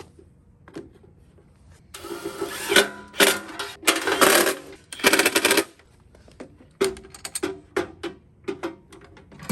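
Hand work fitting a metal ammo can to a scooter: about two seconds in, several seconds of loud grinding and rattling tool noise, then a rapid string of short clicks and knocks toward the end.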